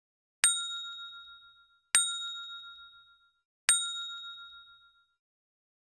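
A bell-like chime struck three times, evenly spaced, each a clear ding that rings out and fades over about a second and a half.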